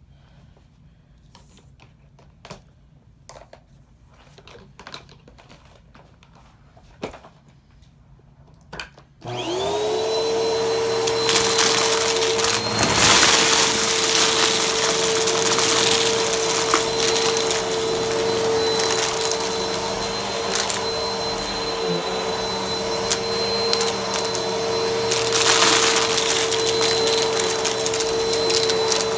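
A few light knocks and clicks, then about nine seconds in a vacuum cleaner switches on and runs steadily with a constant motor hum and high whine, its rush of air swelling now and then.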